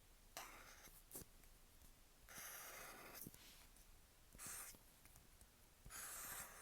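Posca paint marker tip scratching across paper in four separate strokes, the longest about a second, with a brief tick about a second in. The strokes are faint.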